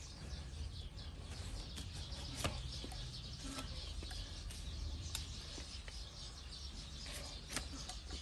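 A broad flat hoof-paring blade shaving horn from an overgrown donkey hoof: faint, scattered crisp scraping clicks, a handful of separate cuts, over a low steady background rumble.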